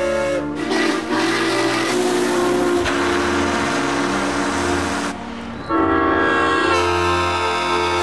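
A run of different locomotive whistles and horns, each a held chord, spliced one after another and changing every second or two. A stretch of rushing noise sits under the sound around three to five seconds in.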